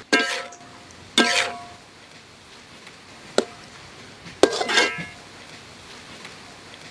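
A stirring utensil clanking against a wok while beef is stir-fried: four sharp clanks, each ringing briefly, over a steady frying sizzle.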